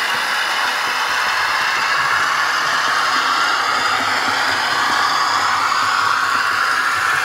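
Two model trains running on track: an H0 Märklin E41 electric locomotive with coaches on Märklin K-Track and an N-gauge KATO KiHa 58 railcar on Unitrack. The track is laid over sound-insulating sheets and cork underlay. Together they make a steady whir of motors and wheels rolling on rail, with a faint whine that slowly shifts in pitch.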